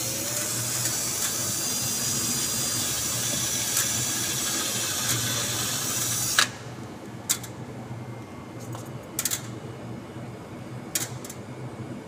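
Cordless drill running steadily for about six seconds while boring a screw hole for a door-closer bracket, then stopping suddenly with a sharp click. A few light clicks and knocks of handling follow.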